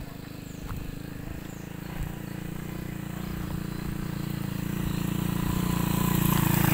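An engine approaching: a steady low drone with a fast, even pulse, growing louder throughout.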